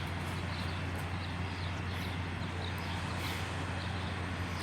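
Street ambience: a steady low engine hum, with faint bird chirps over it.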